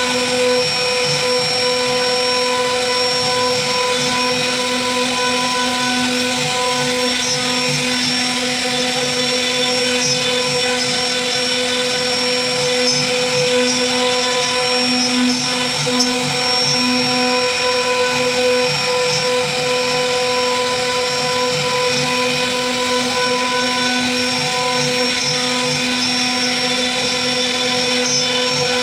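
CNC router spindle running at speed with a steady whine while its carving bit mills a relief into a wooden plank, a rougher cutting noise wavering underneath as the bit works through the wood.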